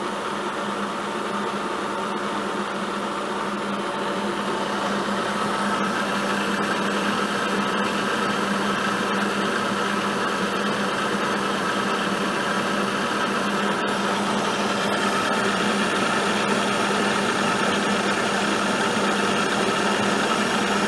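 Vertical milling machine running steadily with a four-flute high-speed steel end mill cutting the side of a mild steel T-nut: a constant hum with an even grinding cutting noise over it, starting and stopping abruptly.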